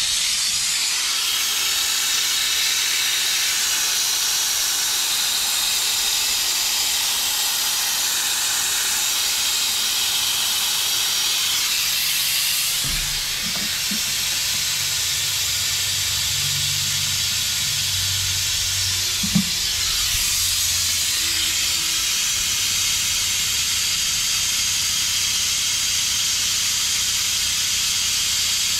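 Air-powered vacuum brake bleeder running on shop air, a steady loud hiss as it draws fluid and air out of the clutch hydraulics through the slave cylinder's bleeder. There is one short knock a little past halfway.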